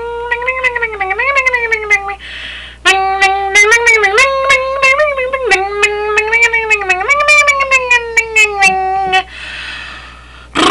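A woman's high, nasal sing-song voice rapidly chanting a repeated syllable like "bling, bling, bling", gliding up and down in pitch. It comes in two long runs with a brief breath about two seconds in, and stops about nine seconds in.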